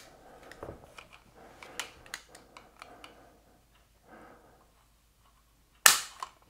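Small clicks and scrapes of a 1911-pattern pistol, a Springfield Armory Champion Operator .45, being handled for a trigger pull gauge test. Near the end comes one sharp metallic snap as the trigger breaks and the hammer falls on the empty gun.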